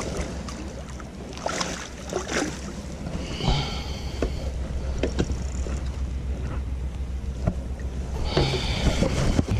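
Wind buffeting the microphone and water lapping around an inflatable float tube, with a few light clicks and two short high scratchy sounds while a hooked fish is brought in on rod and reel.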